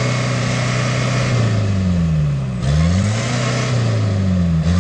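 Toyota Land Cruiser Prado trophy truck's engine revving hard as it struggles through deep mud, the revs falling away and surging back up about halfway through and again near the end.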